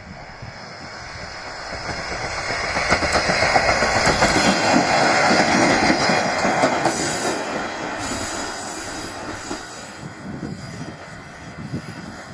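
JR Shikoku KiHa 32 diesel railcar passing by, growing louder to a peak a few seconds in and then fading away, with its wheels running over the rails.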